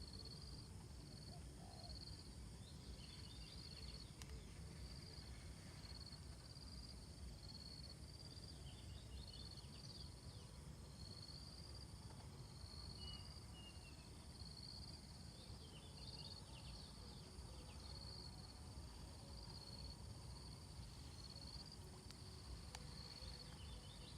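Faint outdoor ambience of insects: a high chirp pulsing a little more than once a second over a steady high whine, with a few short bird-like chirps and a low rumble underneath.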